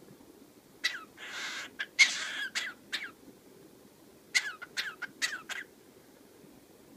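Cockatiel making a couple of raspy, hacking cough-like sounds, like a smoker's cough, among short sharp calls, then a quick run of five short falling chirps.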